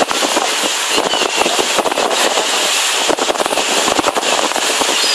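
Wind buffeting the microphone on a moving ferry's open deck, crackling irregularly over the steady rush of the boat's engine and wake.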